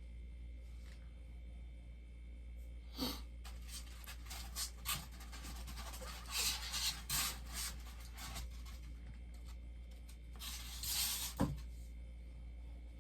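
Packaging being handled as a boxed bobblehead is unpacked: scattered rubbing and scraping sounds with a few light knocks, over a steady low hum.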